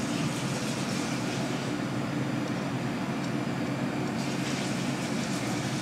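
Steady low mechanical drone at an even level, with a few faint light clicks in the last couple of seconds.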